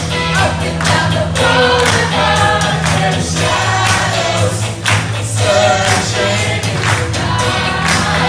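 Karaoke: two singers on handheld microphones sing over a backing track with a steady beat and a bass line, played through a PA system.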